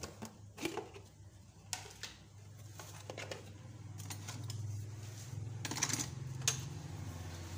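A metal spoon clicking and scraping against containers as sugar is scooped out and tipped into a blender jar: scattered light clicks and a short rough scrape, over a steady low hum.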